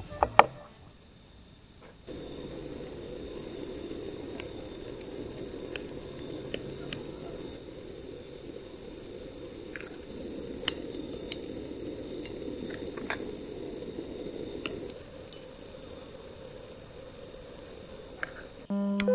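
Crickets chirping steadily, over a low rushing noise that fades out a few seconds before the end. A sharp knock comes right at the start, and light clicks follow here and there.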